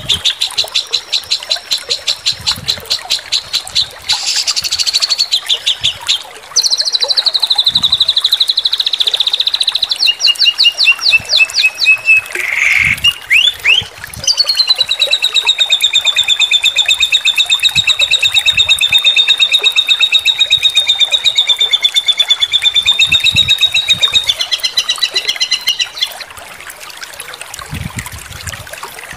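Bird-song master track for training songbirds: fast, high-pitched song phrases strung together, beginning as rapid repeated notes at about eight a second. Around the middle comes a buzzy run that slides down in pitch. From about halfway, one long, very fast trill holds steady and then falls away shortly before the end.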